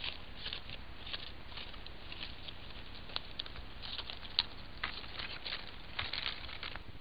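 Black-tailed deer stepping through leaf litter and ferns close to the camera: irregular light rustles and crackles, with one sharper snap a little past four seconds in, over a steady low hiss.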